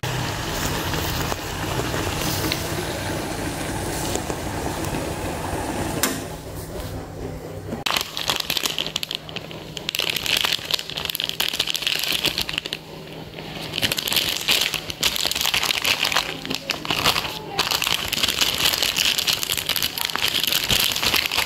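Water boiling in a pot for the first few seconds. Then, after a short lull, the crinkling and rustling of a plastic instant-ramen packet and its seasoning sachets being handled, in irregular bursts with brief pauses.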